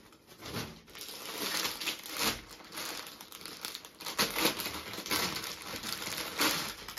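Clear plastic garment packet crinkling as a packed suit is handled and unwrapped, an irregular rustle with several louder crackles.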